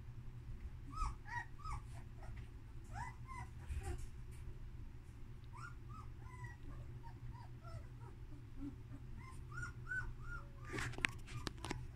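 Two-week-old German Shepherd puppy whimpering: a string of short, high, arched squeaks throughout, with a few sharp clicks near the end.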